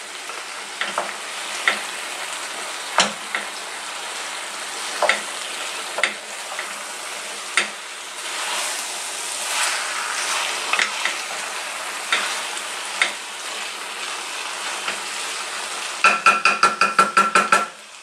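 Chicken and vegetables in teriyaki sauce sizzling in a pan on a low gas flame while a wooden spatula stirs them, knocking against the pan every second or so. Near the end comes a quick run of rapid taps with a slight ring.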